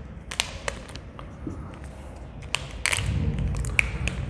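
Marker on a whiteboard: a few sharp taps and short scratching strokes, with a brief squeak near the end. Under it a low rumble grows about three seconds in.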